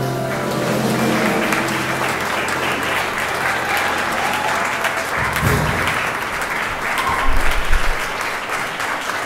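Audience applauding, with the band's final held chord fading out in the first second. Two short low thumps sound about five seconds in and again about two seconds later.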